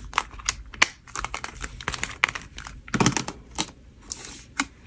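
Paper banknotes and a clear plastic cash envelope being handled: a run of quick, irregular crisp flicks and crackles as the bills are pulled out and straightened, with a soft knock about three seconds in.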